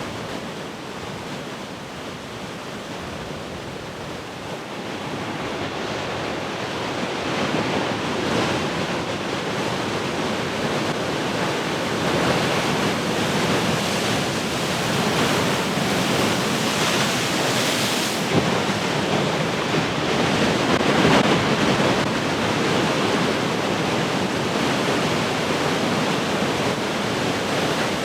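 Large ocean waves breaking and washing in surf, swelling from a quieter wash into louder crashes partway through, with wind on the microphone.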